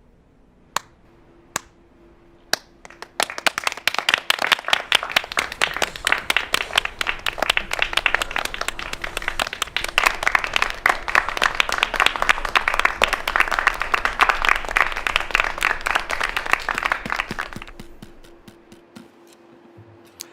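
A small group applauding in a small room. Three single handclaps come first, then dense clapping for about fifteen seconds that fades away.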